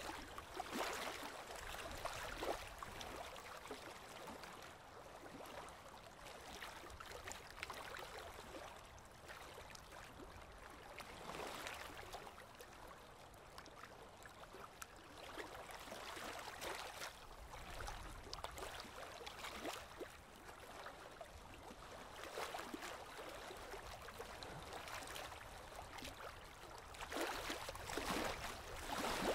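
Small river waves lapping and splashing at the shore, rising in surges every few seconds.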